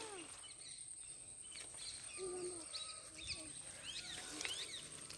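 Faint bird calls: scattered short sweeping chirps, with a couple of lower whistled notes among them.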